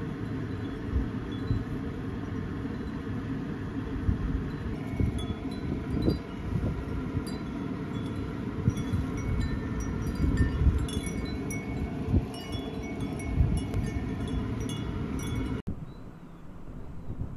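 Wind chimes tinkling: light, scattered high notes that come more often after a few seconds, over a steady low rumble. The sound cuts off abruptly near the end.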